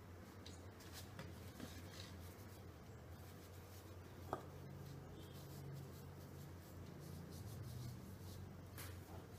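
Faint rubbing of a hand spreading oil over rolled chapathi dough on a floured counter, with a single sharp click about four seconds in and a steady low hum underneath.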